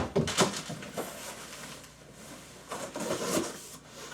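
A sharp knock, then clicks and rustling as tool boxes and packaging are handled, with a second spell of handling noise about three seconds in.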